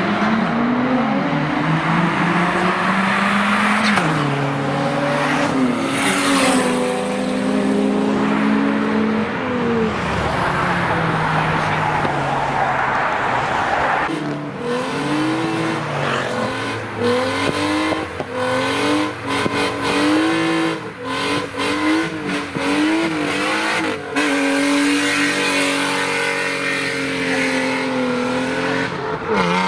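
Modified tuner car engines accelerating hard, the revs climbing with several gear changes. From about halfway the revs are pumped up and down quickly many times, then held high near the end, over steady tyre noise.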